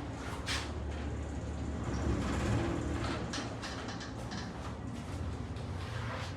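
A 1973 Haughton DC geared traction elevator running: a steady low hum with scattered clicks and rattles.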